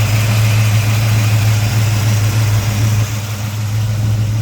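Small-block V8 crate engine (Blueprint 355) idling steadily with a constant low hum. A hiss of rushing air runs over it and eases slightly about three seconds in.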